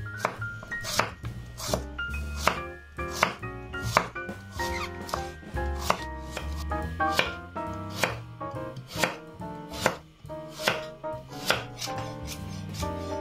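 Chef's knife chopping vegetables on a cutting board, one sharp knock about every three-quarters of a second, over background music.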